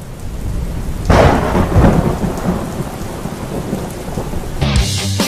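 Thunderstorm sound effect: steady rain with a loud thunderclap about a second in, rumbling on afterwards. Music starts near the end.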